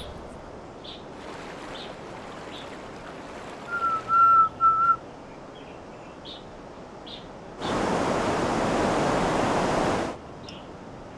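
Soft, steady riverside ambience with faint, scattered bird chirps. About four seconds in comes a whistle of three short notes on one pitch. Near eight seconds a louder, even rushing noise starts abruptly, holds for about two and a half seconds and cuts off suddenly.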